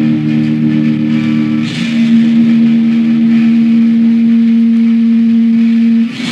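Electric guitar holding long sustained notes that ring out steadily, shifting once under two seconds in, then cutting off suddenly about six seconds in.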